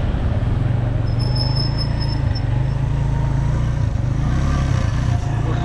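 Motorcycle engine running steadily while riding, over the noise of the road. A brief, high, pulsing beep about a second in.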